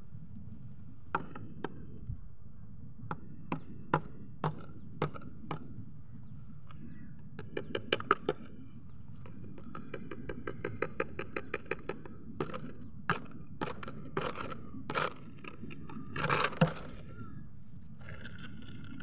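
Thin plastic water bottle with a snake inside, crackling and clicking as it is handled: scattered single clicks, quick runs of clicks about eight seconds in and again a little later, and a louder crunch near the end.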